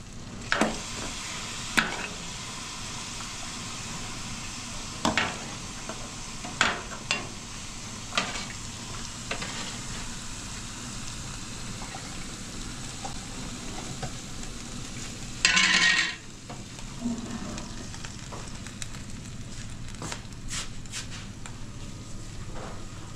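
Kitchen sounds: a steady sizzling hiss of food frying, with scattered sharp clinks and knocks of utensils and dishes and one loud, half-second burst of noise about two-thirds of the way through.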